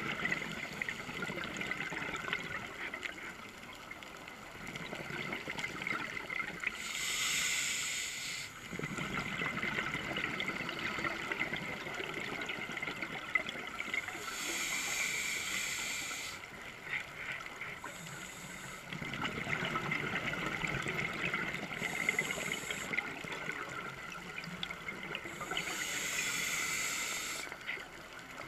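Scuba diver breathing underwater through a regulator: a hiss on each inhale, several times, with bubbling, gurgling exhalations in between.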